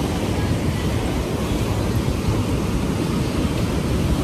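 Ocean surf breaking and washing up a sandy beach: a steady rushing noise with a deep rumble underneath.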